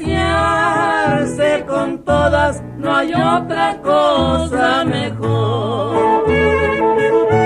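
Norteño music: accordion playing a wavering melody over a steady bass beat.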